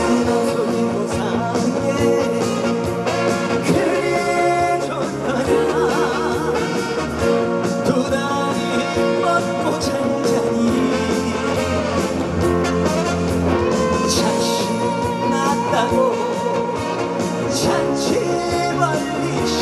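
Music with a singing voice over a full band accompaniment, steady in loudness.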